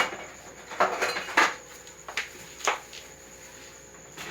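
Kitchen utensils clinking and knocking against dishes, about five separate sharp strikes spread over the first three seconds.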